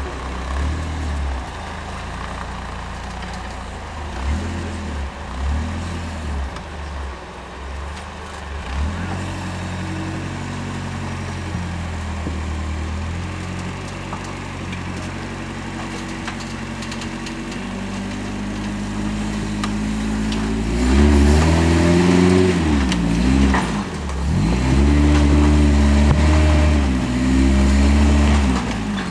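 Rock buggy's engine pulling at low speed as it crawls over boulders, then revving harder from about two-thirds of the way in, its pitch rising and falling in repeated surges.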